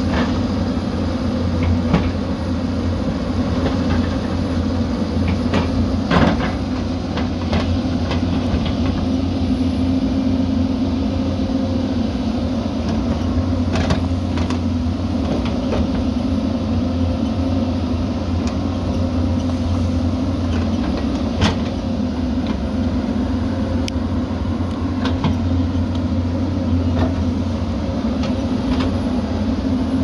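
Hyundai 220LC crawler excavator's diesel engine running steadily under digging load, with a deep steady hum, while the bucket cuts into a dirt bank. Occasional short knocks and clanks from the bucket and arm, the loudest about six seconds in and again about twenty-one seconds in.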